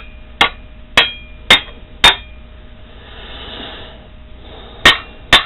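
Steel rod tapping on a small engine's cylinder block in a ring test for hidden casting cracks: six sharp metallic taps, four in quick succession about half a second apart, then a pause and two more near the end, several followed by a short ring. A sound cracked casting would give a duller thunk.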